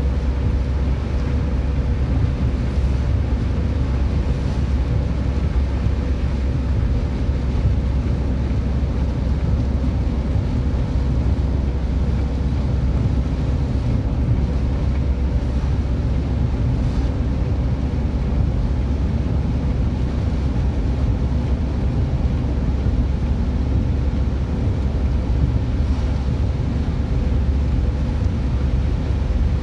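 Cabin noise of a car driving on a wet road: a steady low rumble of tyres and engine with a hiss of road spray and wind.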